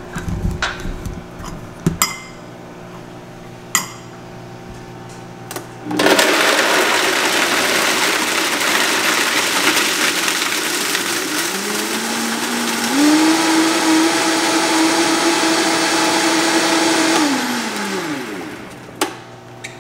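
Vitamix blender running at full tilt, blending ice with strawberry daiquiri mix into a slush. It starts about six seconds in after a few clicks. Its motor pitch rises in two steps partway through, then winds down near the end.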